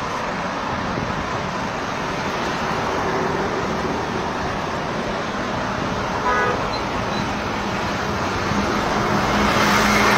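Steady street traffic noise, with a short vehicle horn toot about six seconds in and a vehicle's engine growing louder near the end.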